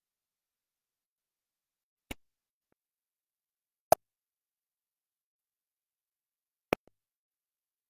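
Three sharp clicks against dead silence: one about two seconds in, a louder one about four seconds in, and a third near seven seconds.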